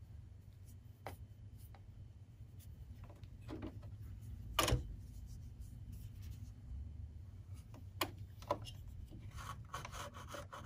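Quiet handling noises over a low steady hum: a few sharp clicks and taps, the loudest about halfway through. Near the end comes a soft rubbing as a pipe cleaner is worked into a sewing machine's bobbin area to pick out lint.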